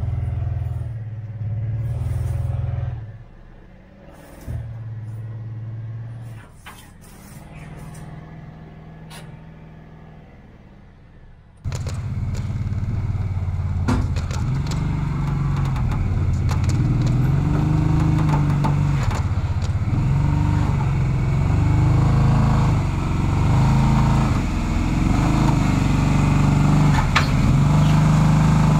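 Kawasaki Teryx4 side-by-side's V-twin engine under throttle as it climbs ramps into a pickup bed, its pitch rising and falling with the throttle. About twelve seconds in the sound jumps to a louder, closer take of the engine working, with scattered knocks and clicks.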